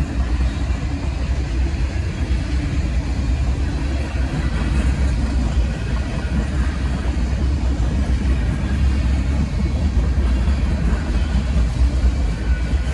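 Freight cars of a CSX container train rolling past, a steady deep rumble of wheels on rail.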